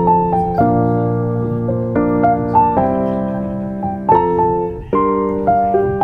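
Background music: a piano playing slow chords, each struck and left to ring before the next.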